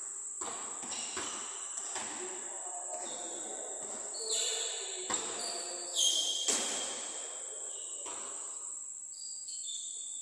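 Basketballs bouncing on a gym court, a few sharp thuds, with short high squeaks and chirps over a steady high-pitched whine.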